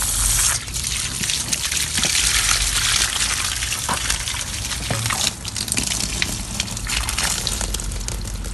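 Garden hose held under pressure against the end of a clogged PVC air-conditioner condensate drain line, water rushing and spraying steadily as it is forced up the pipe to flush the clog.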